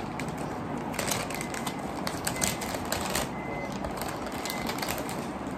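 A large, thin folded paper instruction manual being unfolded and handled, crinkling and rustling in quick, irregular crackles.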